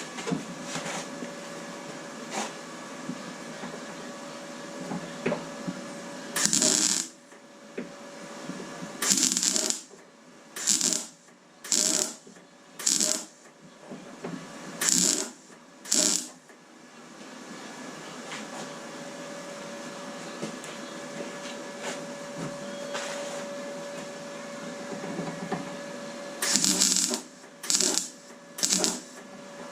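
MIG welder laying short tack and stitch welds on a car door's steel repair panel: about ten brief bursts, each under a second, in a quick cluster and then a few more near the end, over a steady faint hum. The welder is on a fairly high setting, used in short bursts to get penetration without overheating the thin panel.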